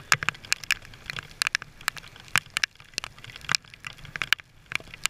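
Raindrops and spray hitting the camera housing in sharp, irregular ticks, a few a second, over a low rumble of wind and water.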